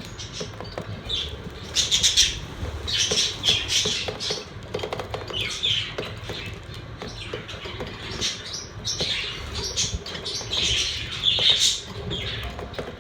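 Several pet budgerigars chirping and chattering in quick, scattered calls, with some brief clicks among them.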